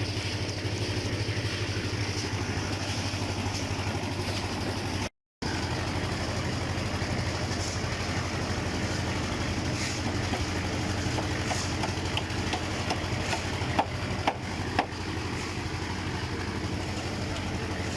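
An engine running steadily at idle, with a constant low hum. The sound cuts out completely for a moment about five seconds in, and a few sharp clicks come near the end.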